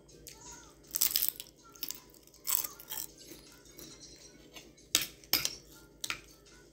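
Crunching and chewing of fried danggit (dried rabbitfish), with a couple of loud crunchy bites in the first few seconds. About five seconds in come a few sharp clinks of a metal fork and spoon against a plate.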